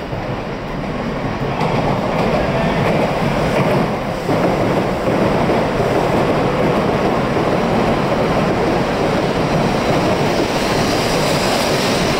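Shinkansen bullet train pulling into a station platform and running close past: a rushing noise of wheels and air that builds over the first couple of seconds, then holds loud and steady as the carriages go by.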